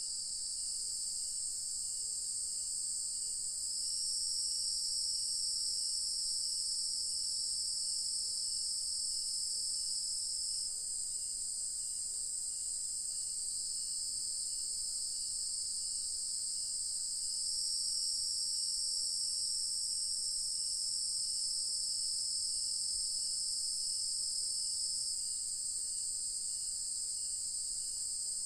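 Dense evening insect chorus of crickets: a continuous high-pitched shrill that grows louder about 4 seconds in and again about 17 seconds in, and eases back after about 11 and 25 seconds. A fainter chirp pulses evenly underneath.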